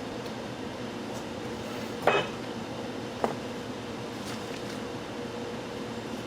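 Two sharp clinks of hard objects knocked together while a box is being unpacked, the first louder with a brief ring, the second about a second later, over a steady background hum.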